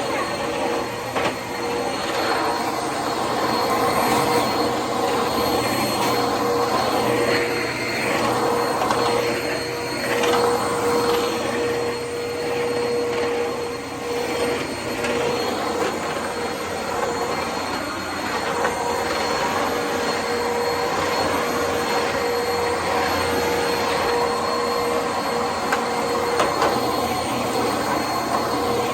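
Eureka Whirlwind Plus upright vacuum running steadily, with a constant motor whine over the rush of air. The sound swells and eases through the middle as it works over the floor.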